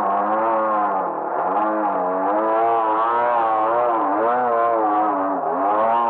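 Radio-controlled Sbach aerobatic model plane's motor and propeller running overhead, the pitch rising and falling repeatedly as it manoeuvres, dipping lowest about a second in and again near the end.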